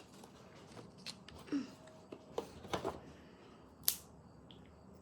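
Light clicks and taps of a small plastic toy vending machine being handled and worked with a coin, the sharpest click about four seconds in.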